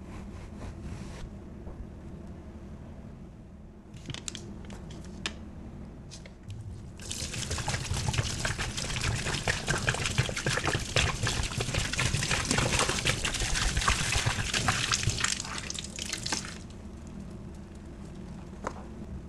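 Liquid cleaner poured from a bottle onto wet sponges in a plastic tub: a splashing, gurgling pour starts about seven seconds in and runs for about nine seconds. A few short clicks and rustles come before it.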